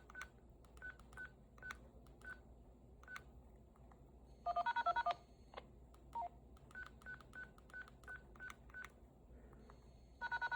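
Faint beeps as digits are keyed in on a DTMF keypad, then a quick, louder string of DTMF touch-tones about halfway through and another starting near the end. These are the tones that arm and then trigger an Arduino DTMF siren controller.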